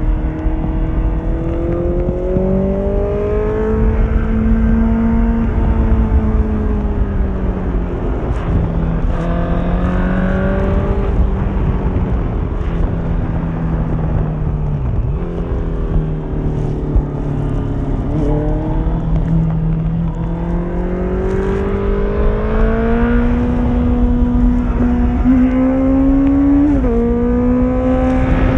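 Honda CBR 650F inline-four engine through an Akrapovic exhaust, on the move. The engine note climbs over the first few seconds, falls and holds lower through the middle, then climbs again. Near the end it drops suddenly in pitch as the bike shifts up a gear, over a steady low rush.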